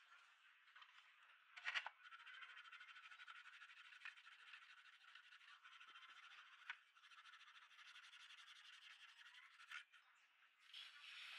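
Sandpaper rubbed back and forth by hand over a plastic PC speaker housing: a faint, fast, rasping scrape, with a louder click about two seconds in and a couple of lighter clicks later.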